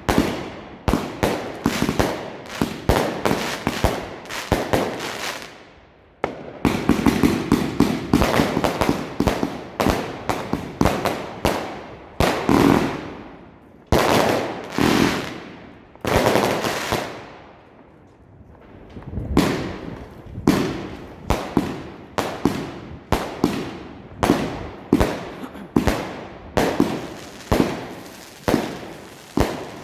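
Klasek F2 firework compound cake firing a rapid string of 20 mm and 30 mm shots, sharp bangs in quick succession, with brief lulls about six and about eighteen seconds in.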